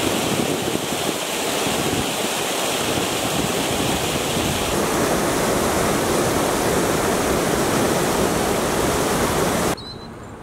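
Steady loud rush of fast-flowing floodwater, cutting off abruptly near the end.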